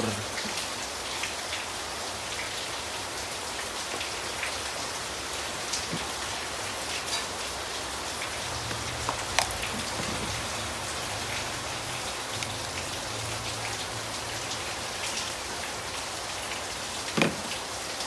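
Steady hiss of rain, with scattered light ticks and a single sharper knock near the end.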